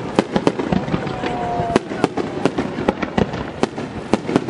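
Fireworks display: aerial shells bursting in quick succession, sharp bangs and crackling several times a second over a continuous rumble, with a thin, slightly falling whistle about a second in.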